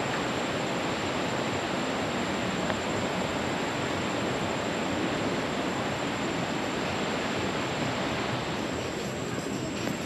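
Steady rush of falling water from a waterfall, even and unbroken, with a thin steady high-pitched tone above it.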